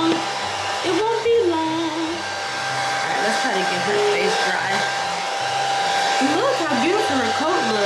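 Handheld electric hair dryer blowing steadily on its cool, low setting, with a steady motor whine, used to dry a wet puppy's fur.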